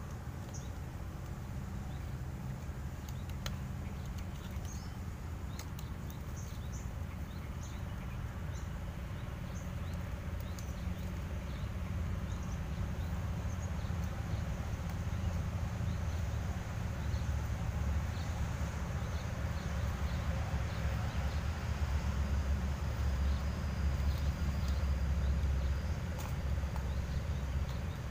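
Rural outdoor ambience with insects chirping and buzzing, over a low rumble that grows steadily louder and is strongest about three quarters of the way through.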